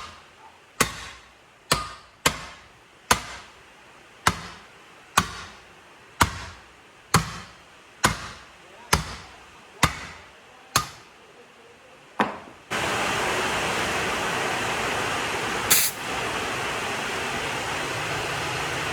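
A hammer struck about once a second, a dozen or so single blows with a short ring after each, in work on a truck tyre. The blows stop and a steady loud rushing hiss starts suddenly, with one sharp click a few seconds later.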